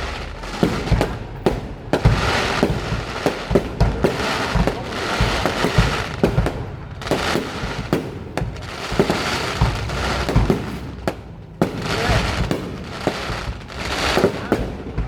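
Aerial fireworks going off in a display: repeated sharp bangs of shells bursting over a crackling, fizzing haze that swells and eases in waves every couple of seconds.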